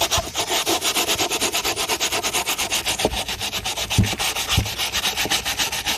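Rapid, even back-and-forth rubbing against the refrigerator's surface, about eight strokes a second, with a few soft knocks about three and four seconds in.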